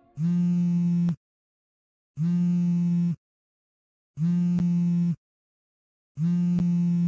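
Smartphone vibrating against a table for an incoming call: four steady buzzes, each about a second long, a second apart.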